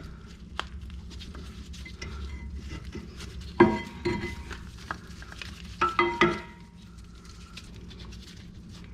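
Small metal brake parts clinking and clicking as the old brake pad wear sensor wire is worked off the caliper. There are light ticks, and two pairs of louder ringing clinks about two seconds apart, over a steady low hum.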